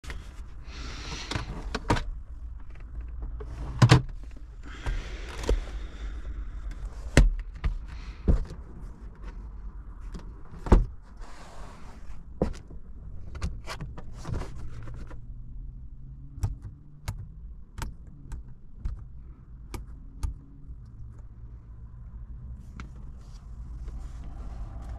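Scattered clicks and knocks of hands working the fittings inside a 2005 Renault Megane II's cabin, over a low steady hum. Three louder thunks come about 4, 7 and 11 seconds in.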